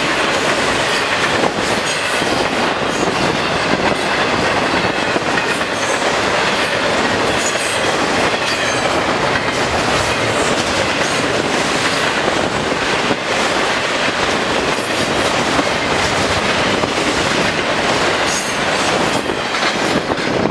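Freight train of intermodal cars rolling past at speed: a steady loud rumble and rush of steel wheels on rail, with a rapid, irregular clickety-clack of wheels crossing rail joints.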